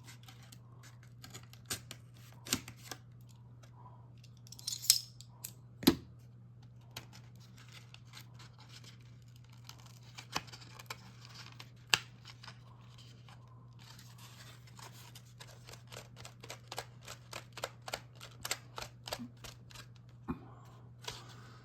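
Plastic pen packaging being cut open: scattered snips, clicks and crinkles, then a quick run of snipping strokes in the last several seconds. A steady low hum runs underneath.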